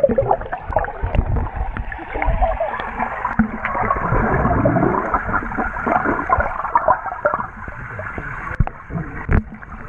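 Muffled underwater sloshing and bubbling as swimmers' legs churn the water close to a submerged camera, with many small clicks and knocks throughout.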